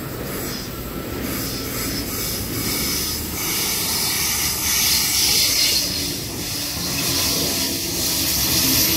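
Sydney Trains Waratah double-deck electric train approaching and passing at close range. Its wheels run on the rails with a steady rumble and a high rushing noise that grows louder from about three seconds in as the cars go by.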